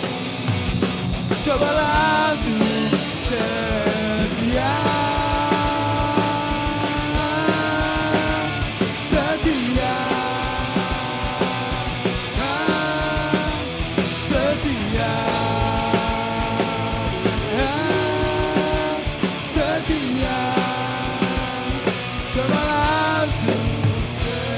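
Live band playing an instrumental break in a rock-pop song: a steady beat under a lead melody of held, sliding notes in phrases a few seconds long.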